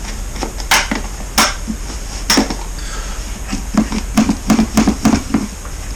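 Sharp knocks and rattles of a motorcycle airbox that is stuck on and being worked loose by hand. A few separate knocks come first, then a quick run of clattering from about three and a half seconds in.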